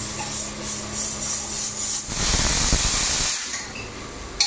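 Steam hissing loudly from a pressure cooker for about a second, starting suddenly about two seconds in, over a steady kitchen hum.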